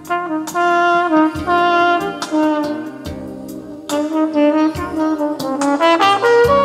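Recorded jazz playing through Dynaudio Contour 20i bookshelf speakers driven by an Aavik I-180 integrated amplifier: a horn melody of long held notes that steps down and then climbs near the end, over drum hits.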